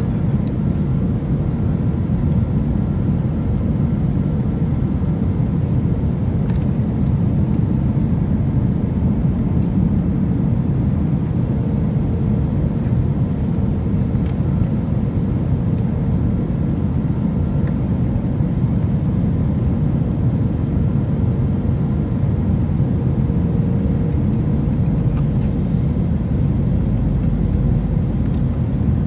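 Steady engine and airflow noise inside the cabin of an Airbus A321-200 airliner on its descent, heard from a seat over the wing, with a faint steady hum running through it. A deeper rumble swells near the end.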